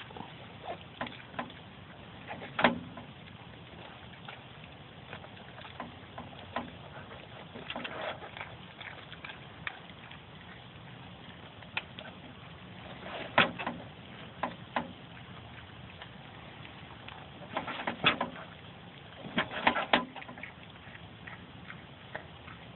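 An animal eating chunks of raw pumpkin from a galvanized metal washtub: wet crunching and chewing, with sharp bites and knocks against the tub now and then, several clustered in the middle and toward the end.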